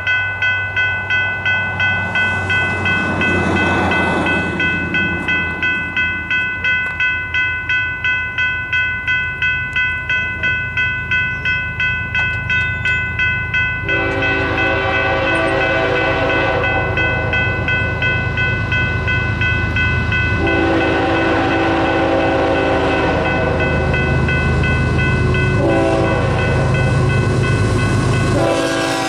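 A General Signals Type 3 electronic crossing bell dinging rapidly and evenly at an activated railroad grade crossing. About 14 seconds in, the approaching BNSF freight's horn joins in several long blasts with short breaks between them, over the rising rumble of the locomotives.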